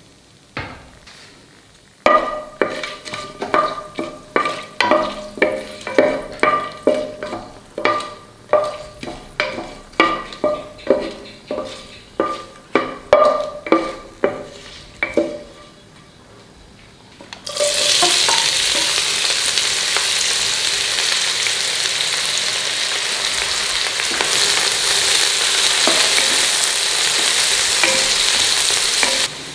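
A wooden spatula stirs whole spices in hot oil, knocking and scraping against a metal pot about twice a second, and each stroke leaves the pot ringing. About two-thirds of the way in, sliced onions hit the hot oil and start a loud, steady sizzle while they are stirred.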